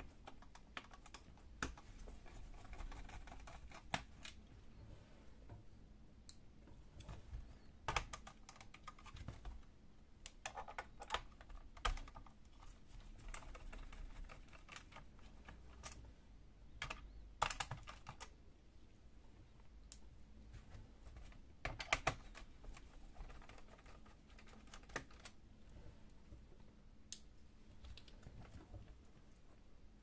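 Faint, irregular light clicks and taps from a small screwdriver working the screws out of a Toshiba Satellite C660 laptop's plastic bottom panel, with the hands shifting the case now and then.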